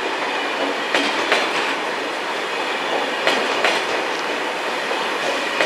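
TGV Réseau high-speed trainset rolling slowly past, with a steady rolling noise from its wheels. Over it come sharp clicks in pairs, one pair about every two and a half seconds, as the two axles of each articulated bogie between the cars cross a joint in the track.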